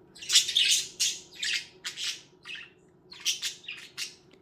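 Budgerigar squawking: a quick run of short, harsh, scratchy calls, with a brief pause about halfway through.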